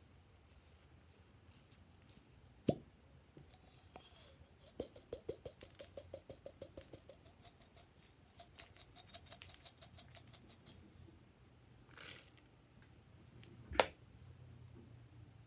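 Hard plastic fruit-shaped containers handled by hand: a sharp knock, then two runs of fast, even clicking, about six clicks a second, a short rustle, and another sharp knock near the end.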